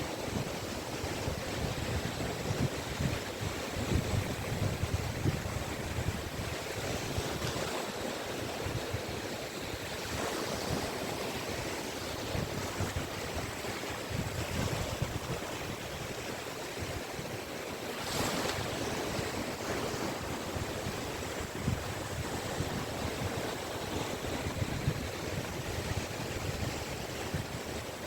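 Small sea waves washing onto a beach, a continuous surf hiss that swells as each wave breaks and runs up the sand, with wind buffeting the microphone in low rumbles.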